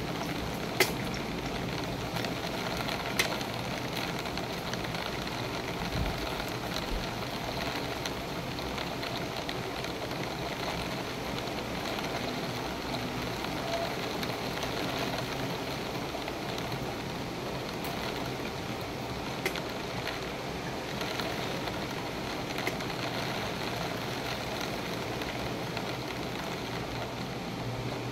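Steady rain in a thunderstorm, an even hiss with a few sharp ticks.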